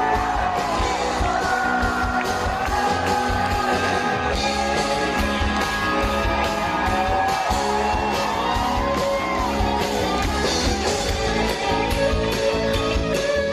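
Rock band playing live: a male lead singer holds long sung notes over electric guitar, keyboard and drums.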